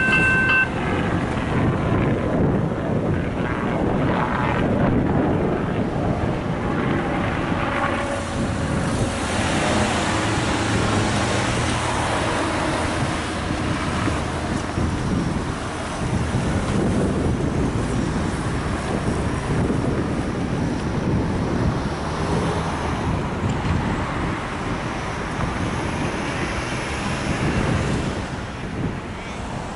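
Level crossing warning bells ringing, cutting off about half a second in as the crossing clears. After that comes steady wind buffeting the microphone, with cars driving across the crossing.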